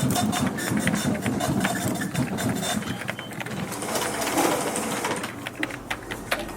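Office printing machine running: a motor chattering in a fast rhythm with many sharp clicks, the chatter strongest in the first half and easing after about three seconds.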